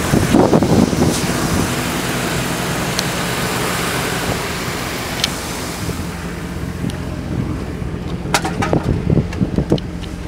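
2011 Chevrolet Silverado's 5.3-litre LC9 Vortec V8 idling steadily. Wind buffets the microphone for about the first second, and a few sharp clicks and knocks come near the end.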